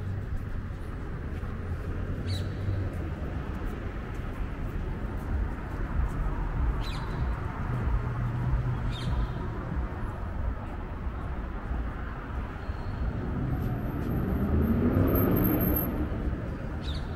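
Outdoor city street ambience with a steady low traffic rumble and a few brief clicks. About three-quarters of the way in, a passing vehicle's engine rises in pitch as it accelerates and becomes the loudest sound before fading.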